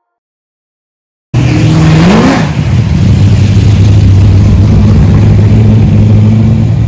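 Car engine cutting in suddenly and loud about a second in, revving up once briefly, then running steadily.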